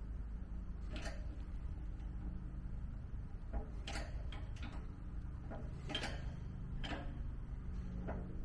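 Shop press forcing a differential carrier bearing off with a bearing separator: about half a dozen scattered sharp clicks and ticks as the press is worked, over a steady low hum.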